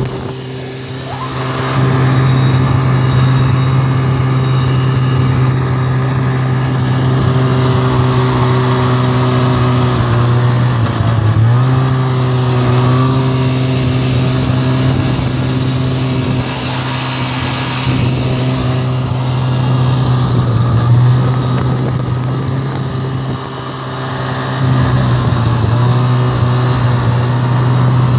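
Snowmobile engine running steadily at cruising speed, easing off briefly about a second in and again around eleven and twenty-four seconds in before picking back up.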